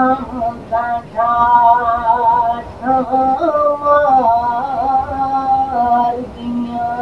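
A man singing a naat, an Islamic devotional song, in a solo voice, drawing out long held notes that waver and bend, with short breaks between phrases.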